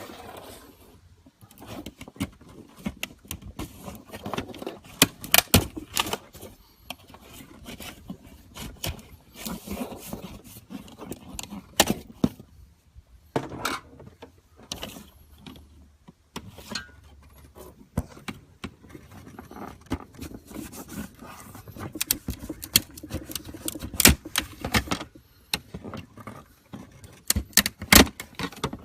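Hand work with tools on a hood vent's backing plate: irregular scraping, with sharp clicks and knocks scattered throughout.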